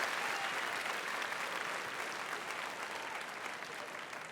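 Audience applauding, dying down steadily.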